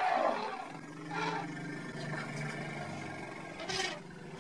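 Deep animal roaring and growling: a loud call at the start, a low growl held under it, and sharper calls about a second in and again near the end.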